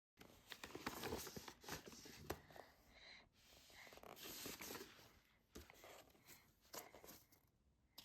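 Faint handling sounds: scattered light clicks and taps mixed with soft rustling.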